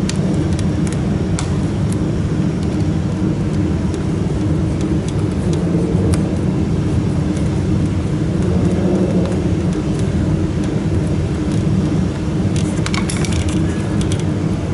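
Steady low machine hum, with a quick cluster of small clicks near the end as fittings and wires are handled.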